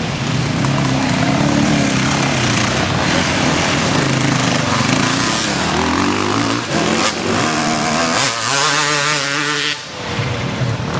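Off-road enduro motorcycles riding past one after another on a dirt trail, their engines revving up and down with the throttle and gear changes.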